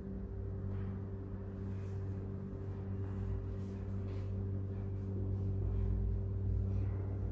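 Steady low electrical hum, with a few faint soft taps of small items being handled on a table.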